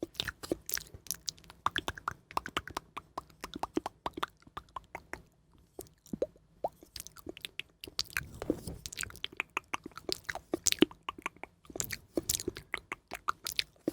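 Close-miked ASMR trigger sounds: a dense, irregular run of small crisp clicks and crackles with brief pauses, about six seconds in and again near the end.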